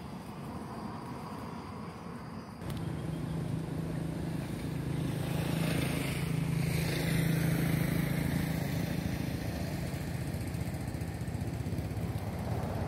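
An engine running steadily, coming in suddenly a few seconds in, loudest around the middle and then easing off, with a falling pitch as it peaks.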